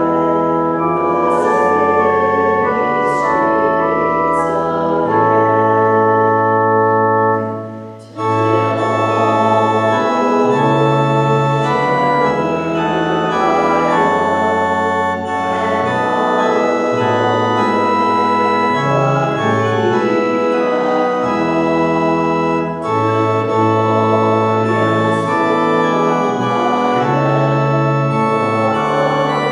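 Church organ playing a hymn: held chords over a bass line that steps from note to note, with a brief break about eight seconds in.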